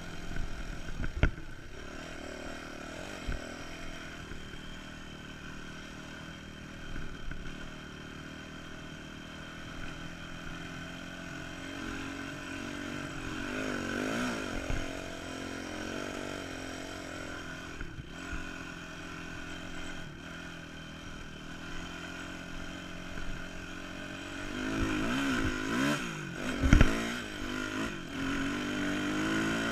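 Dirt bike engine running while riding over sand, its pitch rising and falling in surges of throttle around the middle and again near the end. A few sharp knocks come through, the loudest near the end.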